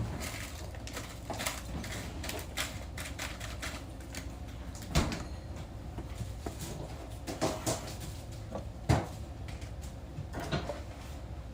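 Kitchen handling clatter: scattered light clicks and knocks of plates, utensils and cupboards, with louder thumps about five and nine seconds in.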